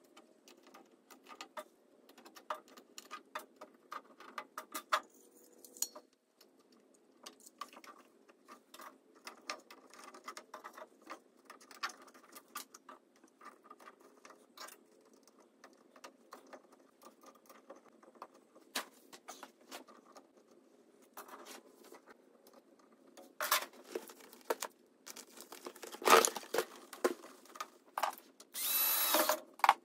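Hands fitting a plastic duct flange and a flexible ribbed duct with a hose clamp onto a laser's exhaust port: scattered clicks, knocks and rustles of plastic and duct. The handling gets busier and louder toward the end, and there is a loud burst of about a second just before the end.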